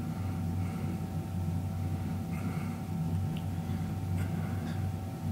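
Steady low hum, with a few faint soft sounds about two and a half to four seconds in.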